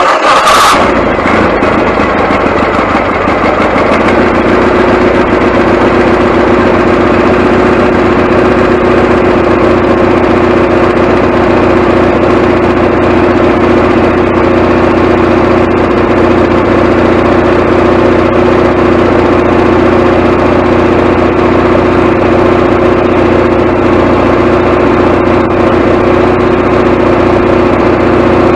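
Wood-Mizer LT40HD sawmill's gasoline engine starting up with a brief high squeal in the first second, then running steadily, fed from a temporary fuel tank to test whether the mill's own tank is causing its fuel problem.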